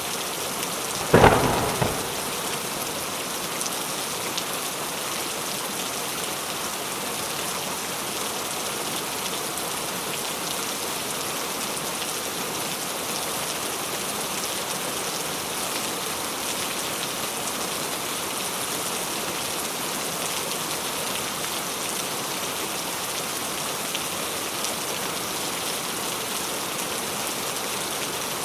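Steady, even rainfall, with one short, loud crack of thunder about a second in.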